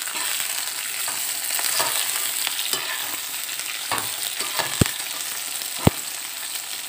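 Sliced onion, carrot and bell peppers sizzling in hot oil in a metal kadhai while being stir-fried with a slotted metal spatula, which scrapes and clacks against the pan. Two sharp knocks of the spatula on the pan come near the end.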